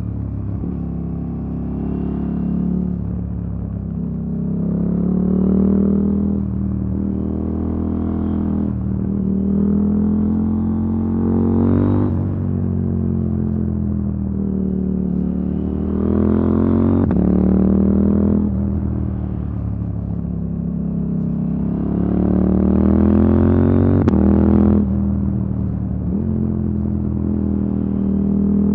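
KTM 890 Duke R's parallel-twin engine, breathing through an Akrapovic silencer and an Arrow decat pipe, pulling hard and revving out: several pulls that rise in pitch and then drop sharply, with a short crack at two of the drops.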